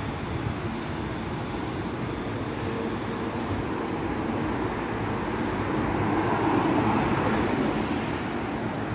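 Steady rumble of road traffic on a busy city street, swelling as a vehicle passes about six to seven seconds in, with faint high whines coming and going.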